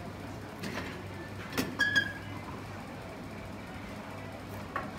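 A steady low hum with a few faint knocks, and a short ringing clink about two seconds in.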